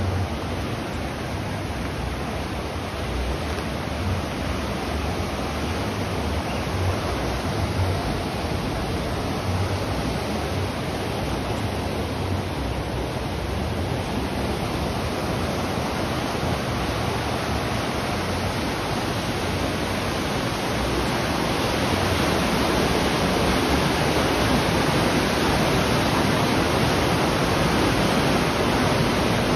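River water rushing steadily, a constant hiss that grows a little louder about two-thirds of the way through.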